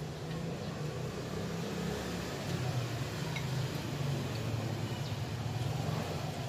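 A steady low mechanical hum over a constant background hiss, with a few faint ticks.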